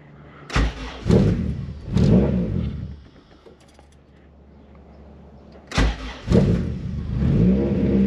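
Two start attempts on a Honda Civic's swapped G23 VTEC four-cylinder engine: the first cranks in a burst of uneven pulses for about two seconds and does not keep running; after a short pause the second cranks, catches, rises in pitch and settles into a steady fast cold idle. It needs throttle held on a cold start because its idle air control valve is disconnected.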